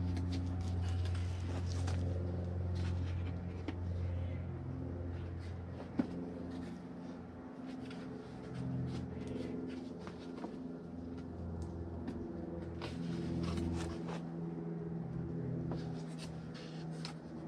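A heater core being slid into a plastic heater box: scattered clicks, taps and scraping of the parts against each other, over a steady low hum.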